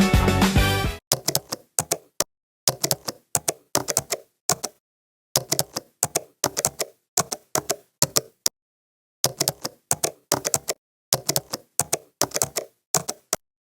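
Typing sound effect: rapid keystroke clicks in short runs, separated by dead silence. Background music cuts off about a second in.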